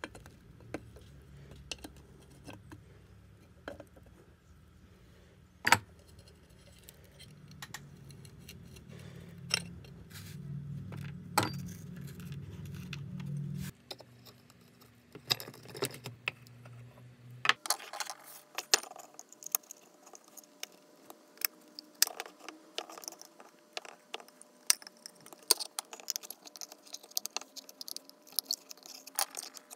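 Sped-up metallic clicking and clinking as a rusty steel car horn is dismantled with pliers and a screwdriver, its drilled-out rivet heads and tools knocking on the metal. A low hum runs underneath until about halfway through.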